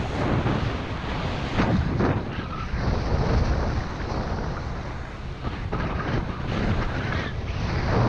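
Wind noise rumbling on the microphone of a skier descending at about 15 to 19 mph, mixed with the hiss and scrape of skis carving on packed, chopped-up snow, which surges with each turn.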